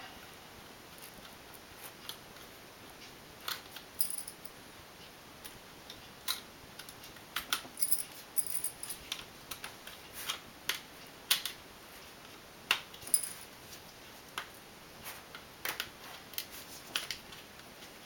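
Scattered small, sharp clicks and ticks, starting about three seconds in, of a RAM module and its retaining clips being worked loose from the memory slot of a 13-inch MacBook Pro.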